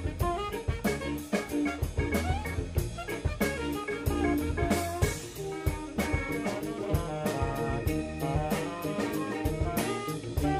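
Live band playing a jazz-funk instrumental: a drum kit keeping a steady beat under bass, electric guitar and a horn section of trumpet, trombone and tenor sax.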